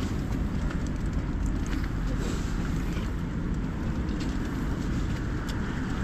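Strong wind on the microphone and against the ice-fishing tent: a steady low rumble, with a few faint clicks.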